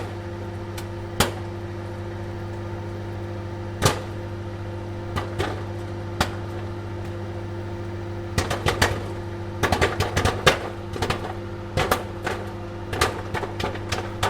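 Popcorn popping in a running microwave oven: a steady hum with scattered single pops at first, turning into rapid, frequent popping a little past the halfway point.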